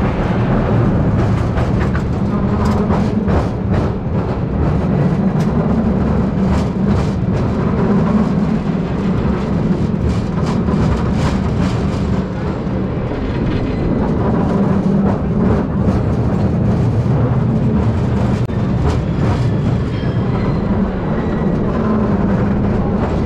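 1896 single-truck streetcar No. 578 running along its rails: a steady rumble with many sharp clicks and clacks from wheels and track, most frequent in the first half.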